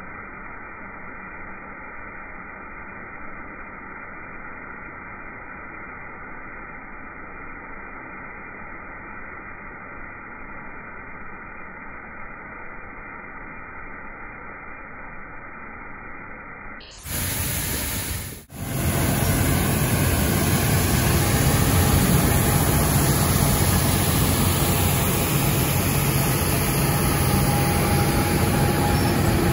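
Road sweeper's gutter broom brushing along the curb, a steady muffled scrubbing noise; about seventeen seconds in it cuts to the much louder, steady running of a road milling machine, a deep engine drone with a faint whine above it.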